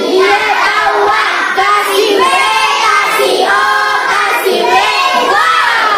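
A class of children singing a short chant loudly together with their teacher, many voices at once.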